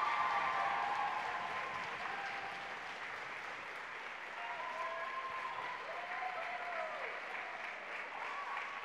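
Audience applauding, easing off a little over the first few seconds, with a few cheering voices calling out.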